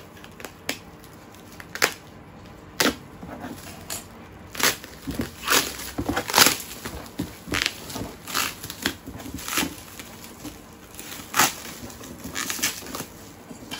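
Packaging being pulled open and torn by hand: irregular crinkling, crackling and tearing of wrapping material, with several louder rips scattered through.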